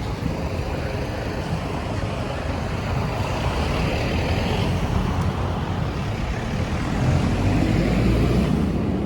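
Street traffic: a steady rumble of passing road vehicles, swelling as a louder vehicle goes by near the end.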